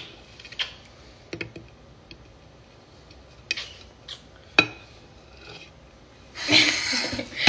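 A metal knife spreading frosting on a cake, with a few light, scattered clicks and taps as the blade knocks against the ceramic cake stand. A short breathy rush near the end.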